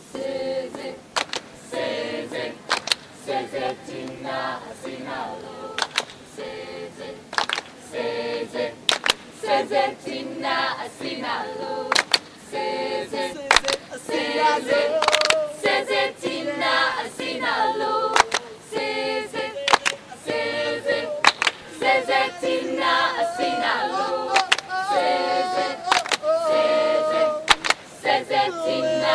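Mixed group of male and female voices singing together a cappella in harmony, with frequent sharp percussive hits in time with the song.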